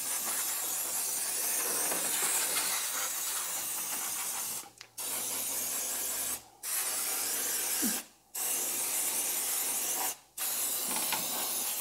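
Aerosol can of air-conditioner sanitizer spraying into the unit in long, steady hisses. There are five sprays separated by short pauses, the first lasting about four and a half seconds.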